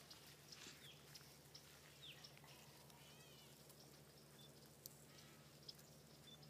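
Near silence: faint outdoor quiet with a steady low hum, a few faint high chirps, and two small clicks near the end.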